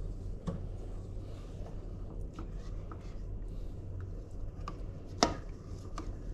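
Wood fire crackling: scattered small pops with one sharper pop about five seconds in, over a low steady rumble.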